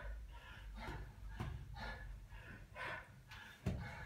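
A man breathing hard and fast, a noisy breath about every half second: out of breath in the middle of a hard workout. A dull thump near the end.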